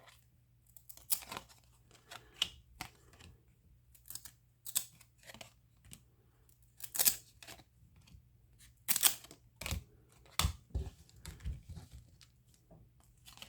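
1993 Upper Deck baseball cards being handled: cards slid off a stack one by one and set down, a short scrape or rustle every second or so, with two soft thumps about ten seconds in.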